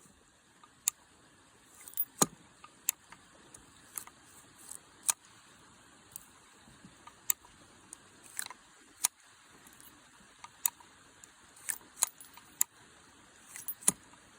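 Sharp, irregular metallic clicks and clinks of a Heritage Rough Rider single-action .22 revolver being unloaded at half cock, with the loading gate open: the cylinder is turned round and spent .22 Magnum cases are pushed out.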